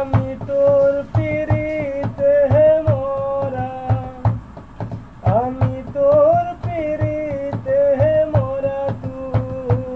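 A man singing a Bengali folk song unaccompanied by words the recogniser caught, holding long notes with sliding rises near the start and about five seconds in, over a steady knocking beat of a few strokes a second.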